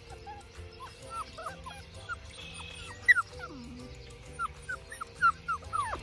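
Labrador retriever puppies, about six weeks old, whimpering and yipping as they play: many short, high squeaks, with one louder yip about three seconds in.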